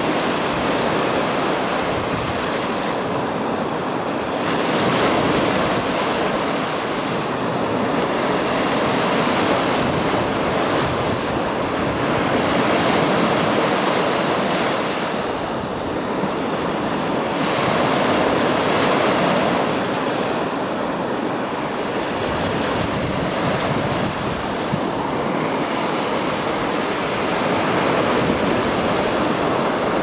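Small lake waves breaking and washing up a sandy shore around boulders: a continuous surf wash that swells and eases every few seconds.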